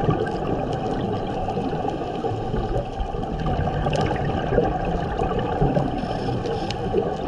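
Muffled underwater noise picked up through a camera's housing: a steady low rush of water with scattered faint clicks and crackles.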